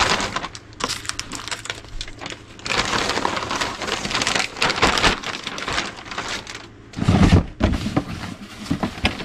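Thin plastic bag crinkling and rustling as it is handled and filled. Then, about seven seconds in, a cardboard box lands with a thump.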